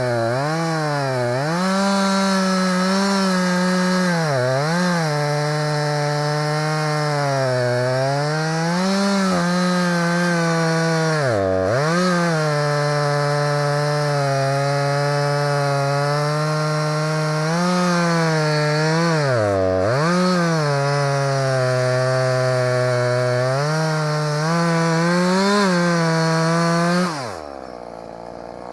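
Husqvarna 340e two-stroke chainsaw cutting wood at high revs, its engine pitch dipping again and again as the chain bites and recovering in between. Near the end the throttle is released and the engine falls to idle.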